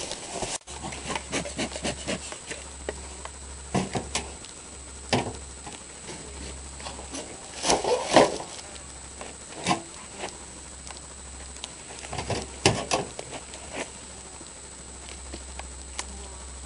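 Irregular rustling, scraping and short knocks of a beekeeper handling cardboard and hive boxes and stepping on soil, louder about eight seconds in and again near thirteen seconds, with honeybees buzzing around the hive.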